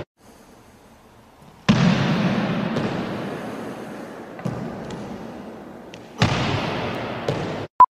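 Heavy thuds on a hardwood gym floor as feet land from jumps during burpees, each thud ringing out in the gym's long echo, twice loudly and once more softly. Near the end the sound cuts off and a single short beep follows.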